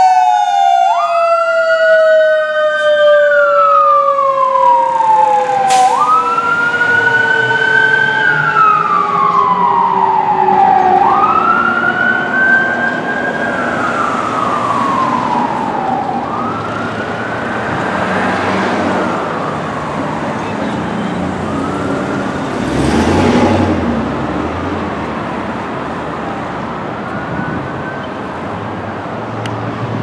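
Fire engine sirens: a Federal Q mechanical siren winding down in one long, slowly falling whine, while an electronic wail rises and falls about every five seconds, both growing fainter as the rig drives away. A vehicle rushes past about two-thirds of the way through, and traffic noise is left near the end.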